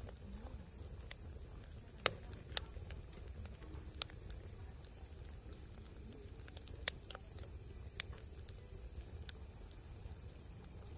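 Split firewood burning in a perforated stainless-steel fire pit, giving scattered sharp crackles and pops over a low steady rumble. The loudest pop comes about two seconds in.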